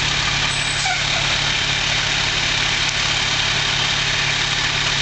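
Antique fire truck engine idling steadily.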